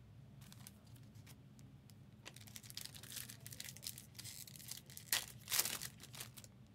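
A trading-card pack wrapper being torn open and crinkled by hand: a run of sharp crackles and rustles, with the loudest snaps about five seconds in.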